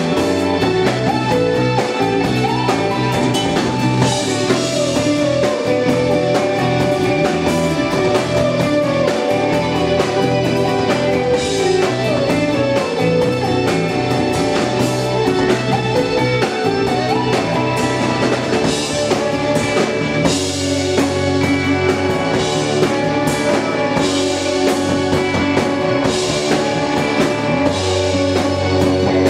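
Live rock band playing at full volume: drum kit, bass guitar, electric guitars and keyboard, with cymbal crashes every few seconds.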